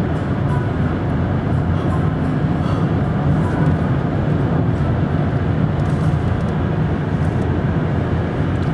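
Steady road and tyre noise with engine drone, heard inside a car's cabin while it cruises at highway speed.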